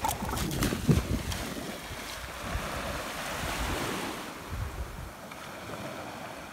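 Small waves washing onto a sandy beach, with wind buffeting the microphone. In the first second or so there are a few sharp splashes as a dog runs into the shallows.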